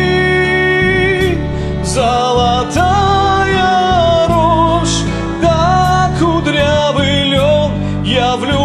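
A man singing a slow Russian folk-style song in long, held notes with vibrato over a karaoke backing track.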